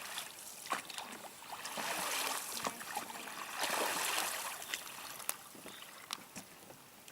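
Water splashing and lapping around a small boat, rising in two swells a couple of seconds apart, with a few light knocks against the hull.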